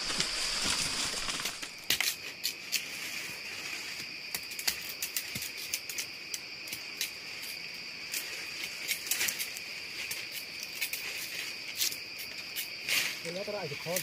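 A steady, high-pitched insect chorus, with many scattered sharp clicks over it.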